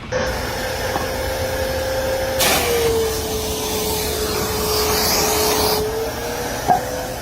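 A motor running with a steady whining hum over a rushing noise; the hiss grows louder about two and a half seconds in and drops back about six seconds in. A single short knock near the end.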